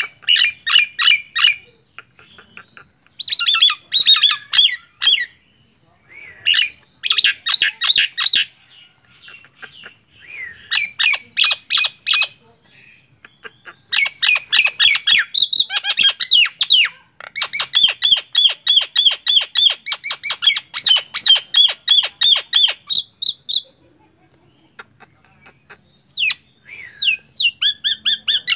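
Common myna (jalak nias) calling in runs of rapid repeated notes, about five a second, broken by pauses of a second or two; the longest run lasts about six seconds.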